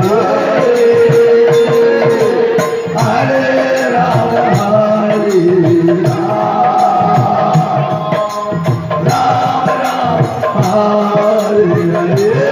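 Devotional Krishna bhajan music: a chanted melody of long held, sliding notes over a steady drum beat with light rattling percussion.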